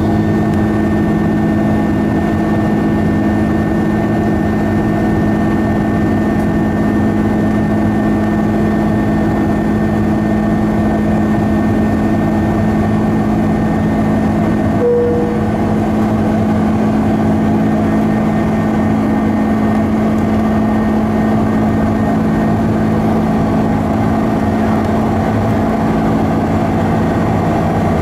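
Airbus A330 cabin noise in the climb: the steady hum of the jet engines and the rush of air past the fuselage, heard from a window seat, with several steady droning tones. A single brief tone sounds about halfway through.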